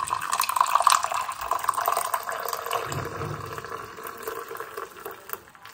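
Steam-frothed milk poured in a thin stream into a mug of coffee: a steady liquid pouring and splashing sound, loudest at first and slowly fading until it stops near the end.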